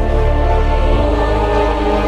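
Background music with sustained low bass and held chords, dark in mood.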